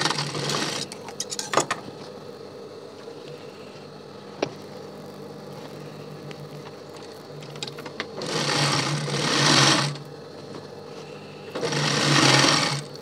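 Sewing machine stitching through non-woven bag fabric in three short runs, the first right at the start, the second about eight seconds in and the third near the end, with pauses between while the fabric is turned at the corner. A low hum and a couple of sharp clicks fill the pauses.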